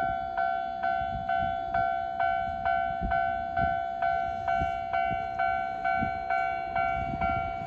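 Japanese level-crossing warning bell ringing on a steady electronic beat, a little over two strikes a second, with a passing Keisei 3000-series train's low rumble underneath.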